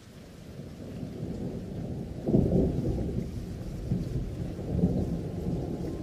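Rolling thunder with rain: a low rumble builds up, with its loudest clap about two seconds in and smaller swells near four and five seconds.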